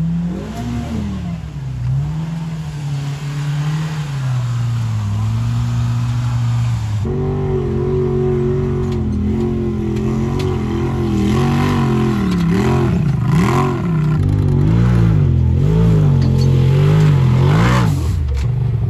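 Side-by-side UTV engines revving up and down repeatedly as they crawl up a steep rock ledge, the pitch rising and falling every second or so. A second, louder layer of engine sound joins about seven seconds in.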